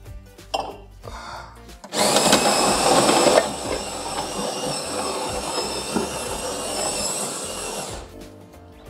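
Melitta Caffeo Passione bean-to-cup coffee machine grinding beans with its built-in grinder: a loud mechanical whirr that starts suddenly about two seconds in, is loudest for the first second and a half, then runs on steadily and stops about eight seconds in.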